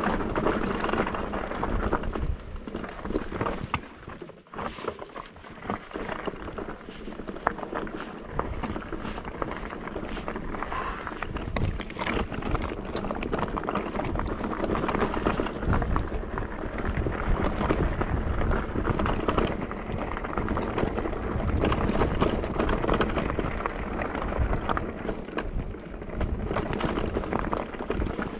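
E-mountain bike ridden over a rough trail: a steady rumble of tyres on the ground with many small rattles and knocks from the bike, easing briefly about four seconds in.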